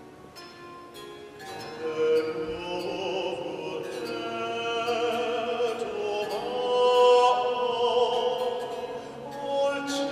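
Harpsichord playing a baroque piece, joined about two seconds in by a baritone singing in a classical style over the plucked accompaniment.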